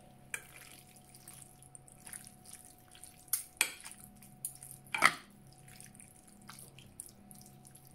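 Metal fork stirring sauce-coated pasta in a glass baking dish: scattered wet squelches and clinks of the fork against the glass, the loudest about five seconds in, over a faint steady hum.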